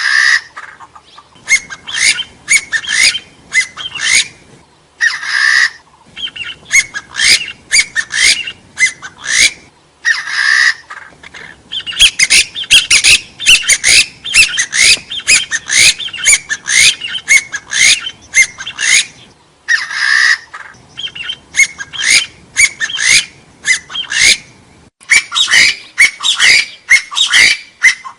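Hill partridge (gà so) calling: runs of short, rising whistled notes repeated several times a second. A longer, harsher note opens or separates the runs. The calls are loud and clean, with little background noise.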